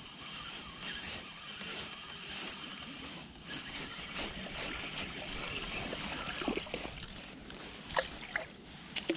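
Steady outdoor noise of wind and lapping water at a lake bank, with a spinning reel being wound in during a lure retrieve. A few sharp clicks from handling the reel come near the end.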